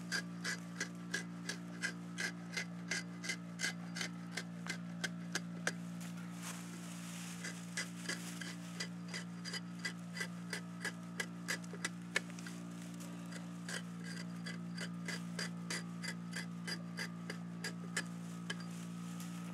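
A freshly sharpened axe blade drawn along an aspen log, shaving off bark and wood in quick, even scraping strokes, about two or three a second, with a short pause about six seconds in.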